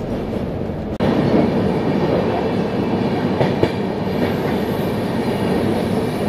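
Running noise of the Rajdhani Express heard from inside the passenger coach: a steady rumble and rattle of the wheels on the rails, with a few faint clicks. It breaks off suddenly about a second in and comes back louder.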